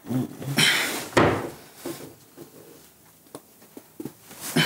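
Bedclothes rustling as someone shifts in bed, loudest about a second in, followed by a few small clicks and knocks from the bedside.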